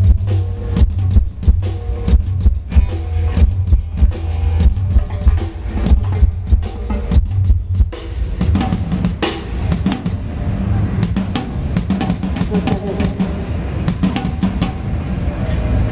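Drum kit played through a concert PA during a band's sound check: kick drum, snare and cymbal hits over a heavy low bass. About halfway through, the low bass drops away and the sound thins out.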